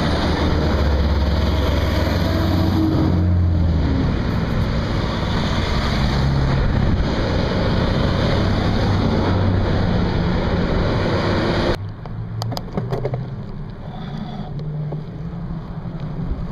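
Wind buffeting the microphone over the low rumble of a nearby fire engine, heaviest in the first four seconds; the wind noise drops suddenly about twelve seconds in.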